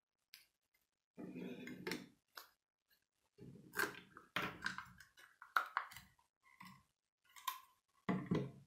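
Plastic Lego pieces being handled and pressed together: irregular clicks, snaps and rubbing, in scattered bursts with short pauses between them.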